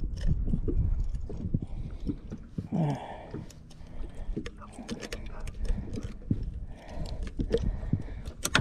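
Handling noise in a small fishing boat while a landed fish is dealt with: scattered clicks and knocks, over a low rumble of wind on the microphone. A few short vocal sounds come through, one about three seconds in.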